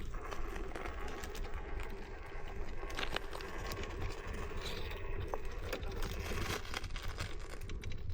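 RC4WD Blazer scale crawler creeping over rock: its small electric motor and gearbox whine steadily, with many small clicks and scrapes of tires and chassis on the stone.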